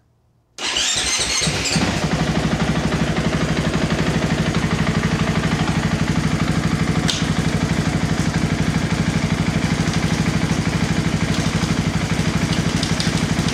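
2024 KTM 500 EXC-F single-cylinder four-stroke engine starting about half a second in and then idling steadily with an even pulse. This is its first start after the oil change, priming the new oil filter.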